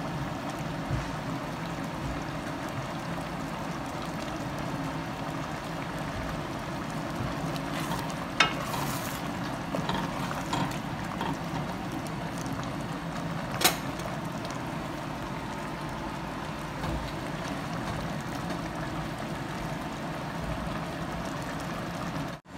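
Chicken pot pie filling simmering in an enamelled cast-iron pot, a steady bubbling hiss. As it is stirred with a wooden spoon, there are two sharp knocks about five seconds apart.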